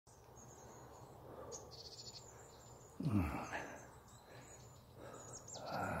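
A hiker breathing hard, with a loud sighing exhale that falls in pitch about three seconds in and another heavy breath near the end. Birds chirp thinly throughout, with a short trill about a second and a half in.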